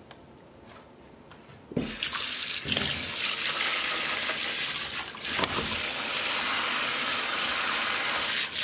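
Pull-down kitchen faucet turned on about two seconds in, water running steadily into a plugged sink to fill it with soapy water, with a few light knocks along the way.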